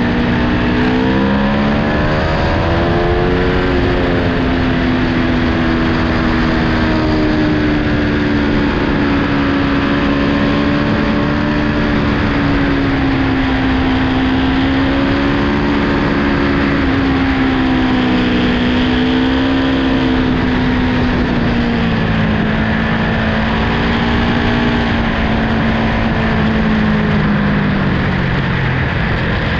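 Onboard sound of an Aprilia Tuono V4 1100 motorcycle's V4 engine on the road, under a heavy rush of wind noise. The engine note climbs and dips back about two to three seconds in, holds with small swells, then winds down steadily over the last several seconds as the throttle comes off.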